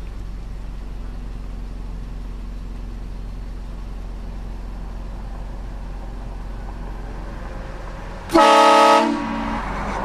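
An air train horn gives one sudden, very loud blast of several tones together, lasting under a second, about eight seconds in, after a long stretch of steady low hum.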